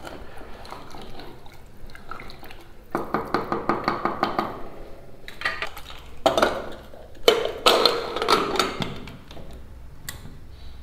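A spoon stirring and scraping khichdi, with water just added, in a metal pressure cooker: a run of quick clinks against the pot, then a few louder ringing metal clanks in the second half.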